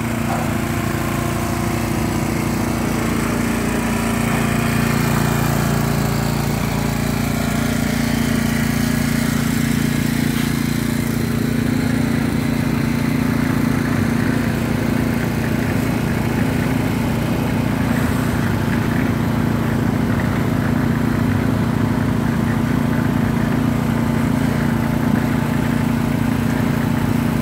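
Small gasoline engine running steadily at a construction pour, powering a malacate (motorised winch hoist) for lifting concrete; its note steps up slightly about four seconds in.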